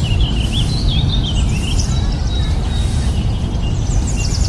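Small birds chirping and twittering over a steady low rumble, with a quick run of high, falling notes near the end.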